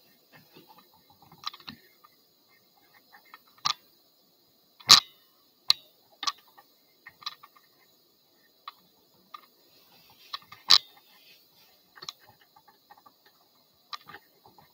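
Irregular clicks and knocks of small objects being handled and set down, with short silences between them; the two loudest knocks come about five and eleven seconds in.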